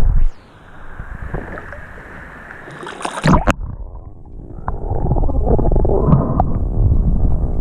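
Muffled underwater noise of water moving around a camera as it swims over the seabed. It is quieter for the first few seconds, with a sudden loud rush and a sharp knock about three seconds in, then a louder churning water noise with light knocks.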